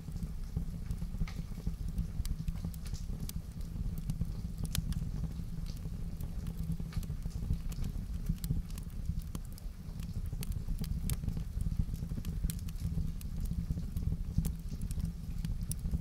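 Wood fire in a fireplace crackling, with irregular sharp pops and snaps over a low, steady rumble.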